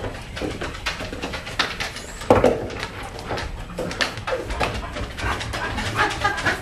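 Footsteps and a Grand Basset Griffon Vendéen's claws and paws knocking and clicking on wooden deck boards, with a sudden louder sound about two seconds in.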